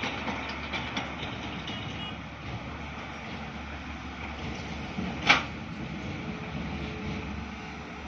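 Diesel engines of two tracked excavators, a JCB and a Tata, running under digging load, with a few light knocks from their buckets and booms early on. There is one sharp, loud knock about five seconds in.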